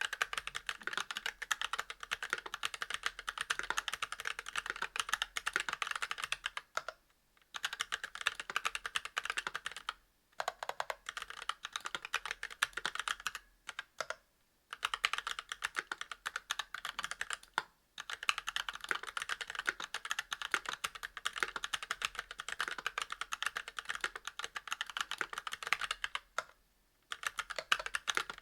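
Fast continuous typing on a Monstargear Alu XO v2 mechanical keyboard with stock Kailh Box Red linear switches, a brass plate and GMK keycaps: rapid keystroke clacks in long runs, broken by brief pauses every few seconds.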